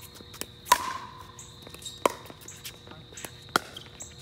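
Pickleball paddles hitting a plastic pickleball during a rally: three sharp, ringing pops about a second and a half apart, with a few fainter knocks in between.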